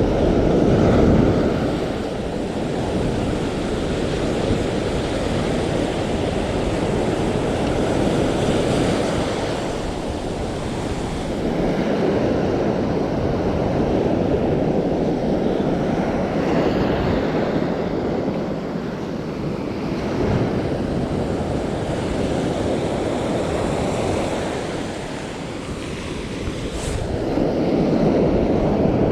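Surf breaking and washing onto a sandy beach, with wind buffeting the microphone; the noise swells and eases slowly as waves come in.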